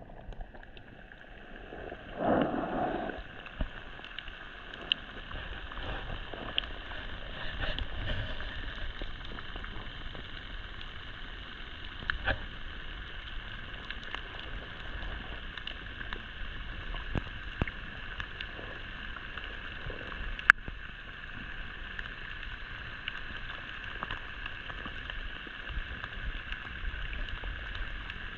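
Underwater ambience picked up by a submerged camera: a steady muffled hiss with many scattered sharp clicks, one much louder click about twenty seconds in, and a brief louder low rush about two seconds in.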